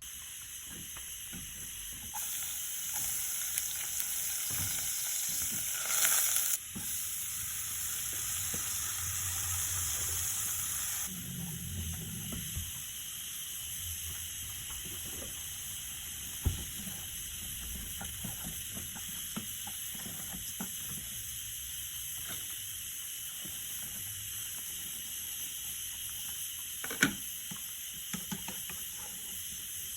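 Food sizzling as it fries in a pan: a hiss that swells for the first several seconds, then settles to a steady sizzle, with a couple of sharp clicks later on.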